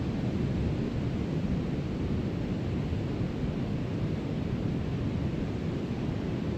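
Steady wind noise on the microphone mixed with the continuous rush of ocean surf breaking on the beach.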